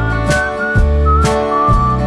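Music: acoustic guitar strumming in a steady rhythm under a whistled melody.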